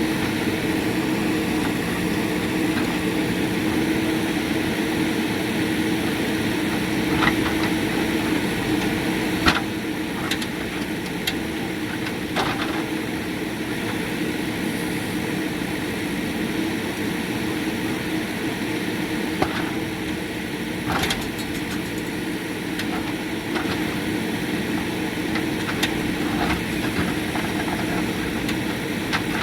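JCB 3DX backhoe loader's diesel engine running steadily, with occasional short sharp knocks over it.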